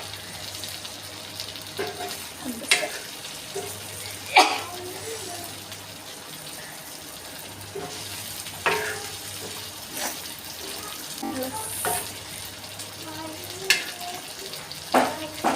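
Fish frying in hot oil in a pan, sizzling steadily while it is stirred. A few sudden sharp sounds cut through, the loudest about four seconds in.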